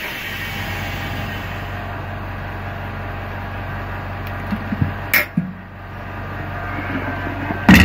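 Vacuum laminating machine running through its pressing cycle with a steady hum, a few light clicks about two thirds of the way in and a sharp click near the end.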